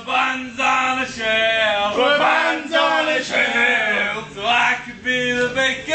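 Male singing, loud, in short phrases of held notes with brief breaks between them.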